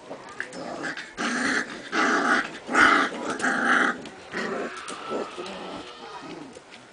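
Standard Poodle puppies growling in play as they wrestle: a run of about five loud, rough growls between one and four seconds in, then fainter, shorter growls and whines.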